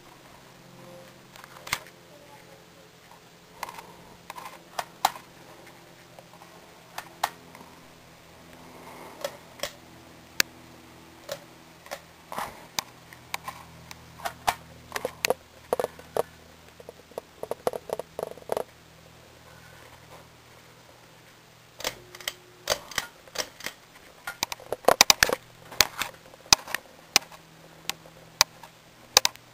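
Ceiling fan running with a faint steady motor hum, under many irregular sharp clicks and ticks that come in quick clusters at times.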